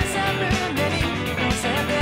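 Fender Stratocaster electric guitar playing a rock guitar part along with a full band, drums hitting on a steady beat about twice a second.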